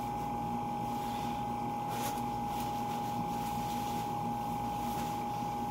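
A steady machine-like hum with one constant high whine, from some appliance or fan running in a small room. A brief rustle of fabric about two seconds in, as a jacket hood is pulled back.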